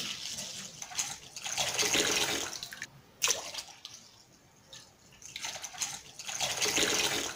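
Milk pouring in a thin stream into a glass bowl partly filled with milk, a splashing pour that grows louder twice, with a short knock a little after three seconds in.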